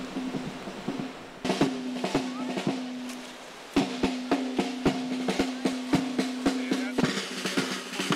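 Marching wind band playing: snare drum beats at about three a second over held band notes.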